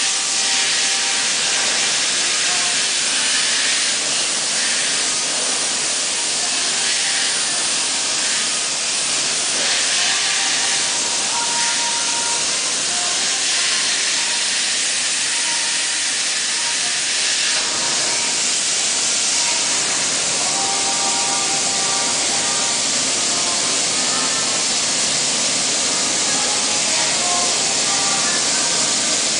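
CNC plasma cutter's torch hissing steadily as it cuts thin sheet metal.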